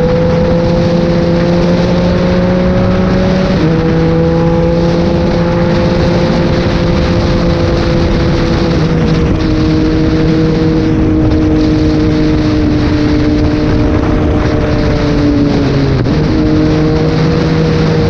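Yamaha MT-09's inline three-cylinder engine running at a steady cruise, heard over heavy wind rush. Its note steps down sharply about three and a half seconds in, drops a little again around nine seconds, and dips and recovers near the end.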